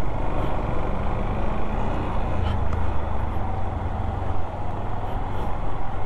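Motorcycle on the move: a steady low engine hum under a continuous rush of wind and road noise.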